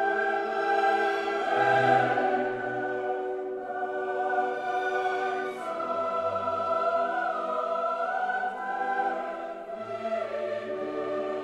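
Background music of a choir singing slow, held chords.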